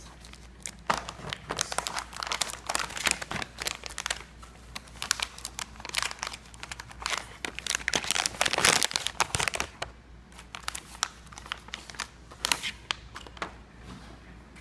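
Crinkly plastic anti-static bag rustling and crackling in the hands as it is opened and the debug card taken out, loudest about eight to nine seconds in, then lighter scattered crinkles.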